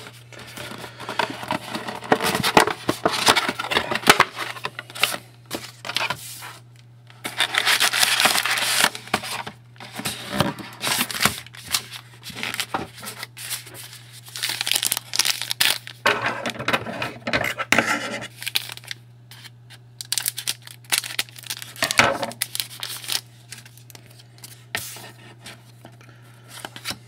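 Trading-card packaging being torn open by hand: wrappers tearing and crinkling in irregular bursts, with cards rubbing and sliding, over a steady low hum.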